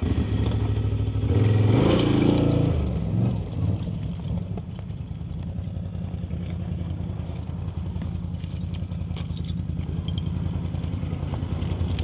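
ATV engine revving up briefly about two seconds in, then running steadily at low revs.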